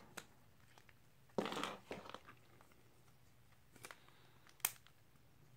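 Quiet handling noises as a Samsung Galaxy S7 is pressed into a Spigen Neo Hybrid TPU case: a brief rustling scrape, then a few small clicks, the sharpest near the end as the case snaps onto the phone.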